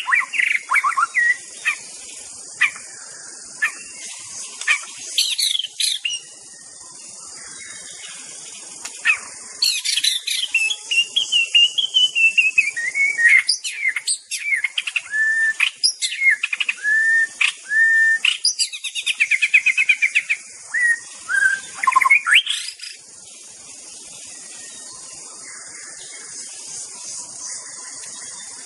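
White-rumped shama singing loud whistled phrases with rising and falling glides. A few phrases come at the start, then scattered notes, then a long, dense run of song from about ten seconds in that stops at about twenty-three seconds. A steady high hiss runs underneath.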